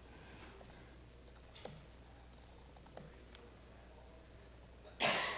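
Faint, sparse keystrokes on a laptop keyboard as terminal commands are typed, over quiet room tone. Near the end comes a short, louder rush of noise.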